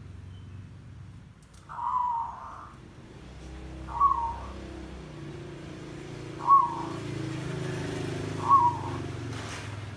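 Caged zebra dove calling. First a longer, wavering coo about two seconds in, then three short, loud coos about two seconds apart, given with the bowing, tail-raised challenge (tandang) display. A low steady hum runs underneath.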